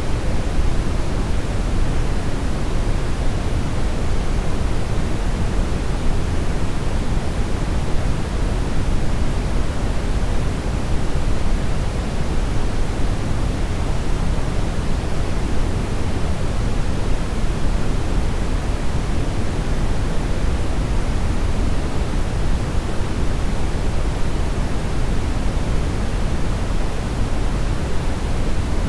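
Synthetic brown noise: a steady, even rumbling hiss, strongest in the low end and fading toward the top, with no changes or events.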